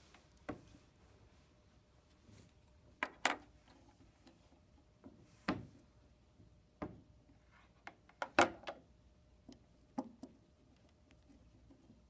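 Scattered light clicks and taps of hands handling small metal parts and tools on a workbench: a wire connector held in alligator clips on a wooden block, and a soldering iron. The loudest cluster of clicks comes a little past the middle.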